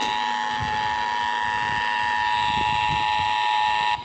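Emergency Alert System attention signal broadcast over radio for a Required Monthly Test: a steady two-tone alarm that cuts off abruptly just before the end, with a faint low rumble underneath.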